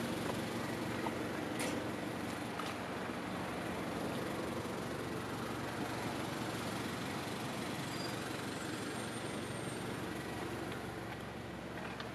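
Steady low vehicle hum, like an engine running or traffic, with a couple of faint clicks a second or two in.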